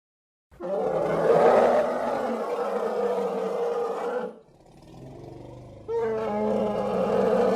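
Woolly mammoth sound-effect calls. A long, loud pitched call lasts about three and a half seconds and is followed by a quieter low rumble. A second call starts about six seconds in.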